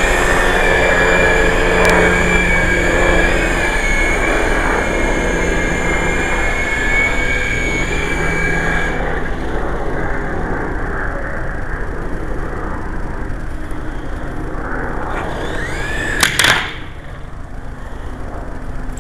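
Small electric motors and coaxial rotors of a Syma S033G toy RC helicopter whining and buzzing steadily in flight. The high whine drops away about nine seconds in, and a short loud clatter comes about sixteen seconds in, after which it is quieter.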